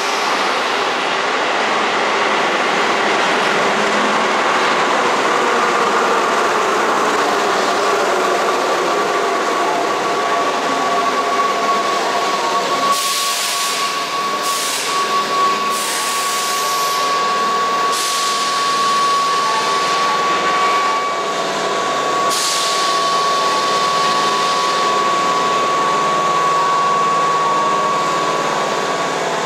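Older, pre-VVVF Keihan Railway electric train: loud running noise for the first dozen seconds, then a steady high whine with a few short hisses, about thirteen seconds in and again over the next ten seconds.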